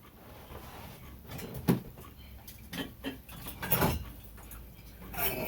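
Handling noises: a few scattered knocks and rustles, with a louder scraping sound near the end.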